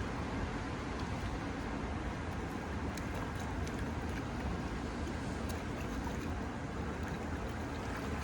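Steady rushing of a trout stream's flowing water, with a few faint clicks.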